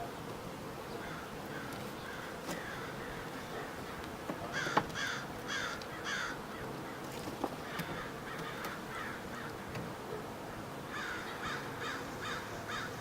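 A crow cawing in three runs of four or five harsh calls, over the steady hum of honeybees from an open hive.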